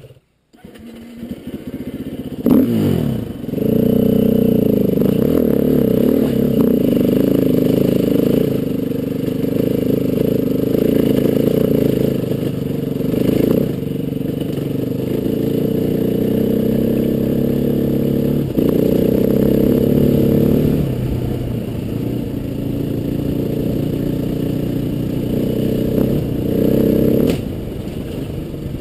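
Trail motorcycle engine revving up as it pulls away about two and a half seconds in, then running at a steady pace with rises and falls in throttle as it rides along a rough grassy lane.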